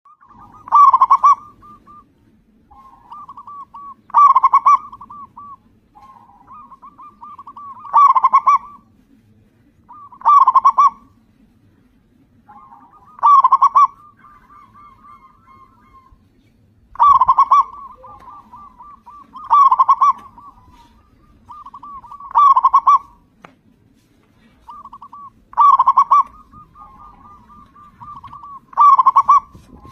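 Zebra dove (perkutut) cooing: a loud call about every three seconds, ten in all, with softer rapid cooing notes between them.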